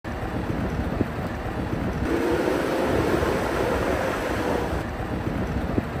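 JCB backhoe loader's diesel engine running as the machine drives and grades stone with its front bucket, with wind buffeting the microphone. The engine note swells for a couple of seconds mid-way, then settles.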